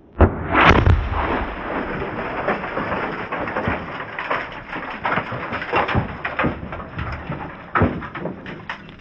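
An explosive blast against a car, a sudden loud bang about a quarter second in, followed by a long run of irregular crackles, pops and patters as debris and dirt come down, with one sharp loud crack near the end.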